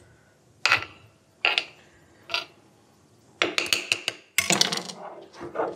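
Stone grinding on a flat stone slab (shil-nora), green and dried chillies being ground into paste. First come a few separate scrapes, then quick continuous back-and-forth grinding strokes from a little past halfway.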